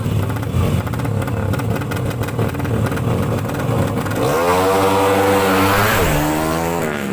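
Drag-racing motorcycle engines. A rough rumble runs for the first few seconds, then about four seconds in one engine revs up hard and climbs in pitch. It dips briefly for a gear change and rises again near the end.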